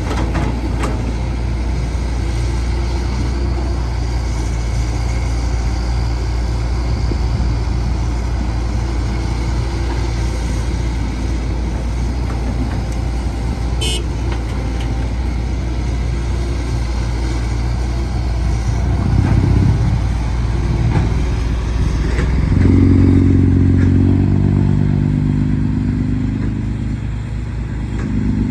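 Caterpillar 312C excavator's diesel engine running steadily. It swells to a louder, stronger note about twenty seconds in and again for several seconds near the end, as it works under load.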